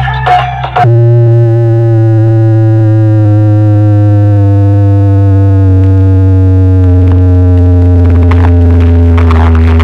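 Large DJ sound system playing a heavily distorted electronic track at full volume. After a short break about a second in, a long synthesizer tone over heavy bass slowly slides down in pitch.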